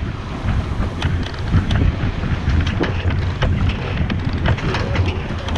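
Sailing yacht's sheet winch being cranked with a winch handle, its pawls clicking rapidly and unevenly over a heavy rumble of wind buffeting the microphone.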